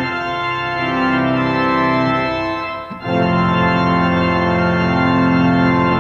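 Large three-manual pipe organ playing sustained full chords, with a brief break just before halfway and then a long held chord.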